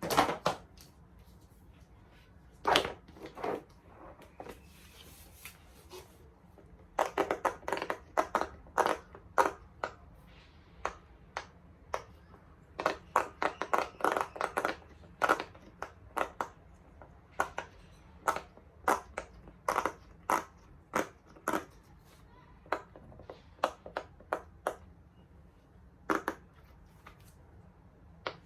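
Silicone bubbles of a large pop it fidget toy being pressed in one after another, giving a long string of sharp pops. They come in quick runs in places, with short pauses between.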